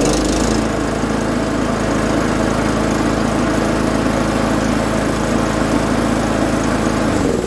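Webb 132cc DVO130 single-cylinder petrol lawnmower engine running at a steady speed with the choke off. It is shut off near the end and winds down.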